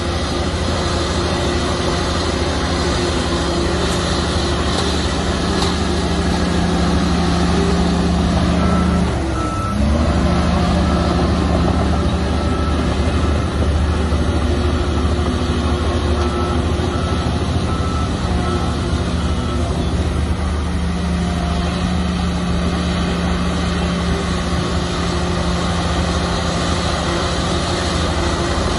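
Heavy diesel engine of a Komatsu bulldozer running hard, with its note dipping briefly about nine seconds in. A reversing alarm beeps steadily for about ten seconds in the middle.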